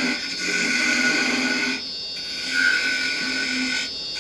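Wood lathe running while a carbide chisel cuts the spinning finial, a steady hiss of shaving over a motor whine. The tool is held rolled over to soften the cut. The cutting drops out briefly about two seconds in and again near the end.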